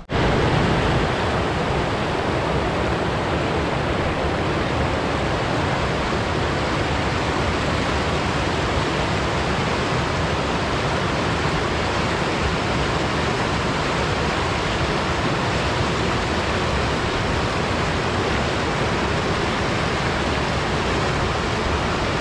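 Fast-flowing river rushing over flat rock slabs and low ledges in small falls and rapids, a steady, unbroken rush of white water.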